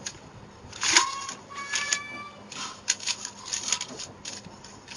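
A sheet of notebook paper crinkling and rustling in short, irregular bursts as it is pressed by hand into an aluminium pressure cooker. About a second in, a short pitched sound is held for about a second.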